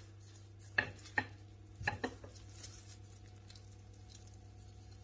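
A wooden rolling pin knocking against a granite countertop four times in the first two seconds as dough is rolled thin and the pin is set down, over a faint steady low hum.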